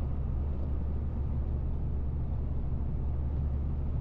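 Heavy truck cruising at steady highway speed, heard from inside the cab: an even, low engine and road drone.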